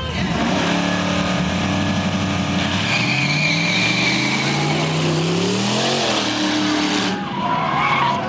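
Buick Grand National launching hard off the drag-strip start line, the engine pitch climbing as it accelerates, then dropping at a gear change about six seconds in as the car pulls away down the track.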